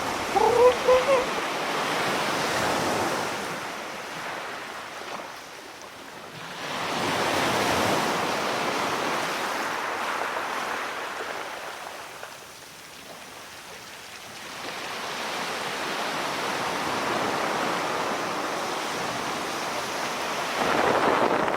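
Ocean surf: a rushing wash of waves that swells and fades roughly every six to eight seconds.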